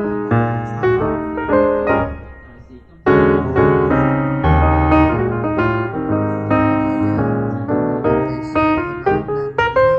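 Piano music: a melody of quick notes over chords. It dies down about two seconds in, then comes back in full about three seconds in.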